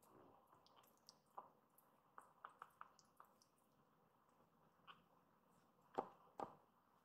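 Faint wet smacking and sucking clicks from a young kitten suckling on a fingertip, a quick run of them about two seconds in, then two louder sharp taps near the end.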